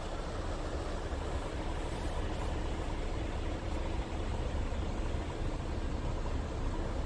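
Scania R truck's diesel engine idling, a steady low rumble heard from inside the cab.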